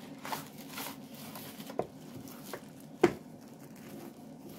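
Retail packaging of a selfie-stick tripod being opened and handled: scattered clicks, rustles and taps, with one sharp knock about three seconds in.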